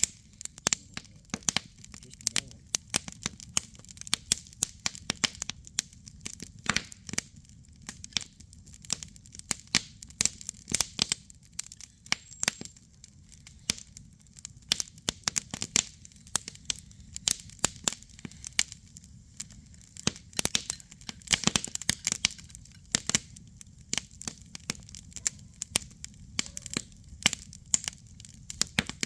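Campfire crackling: burning wood snapping and popping irregularly, several sharp pops a second, over a low steady rumble.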